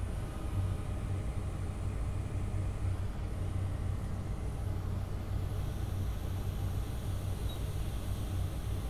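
Steady low machine hum with a faint hiss and no distinct clicks or knocks.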